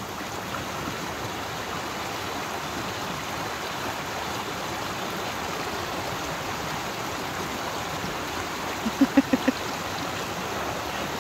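Rushing water of a flood-swollen creek, a steady, even rush. About nine seconds in, a person's voice gives a quick run of about five short sounds.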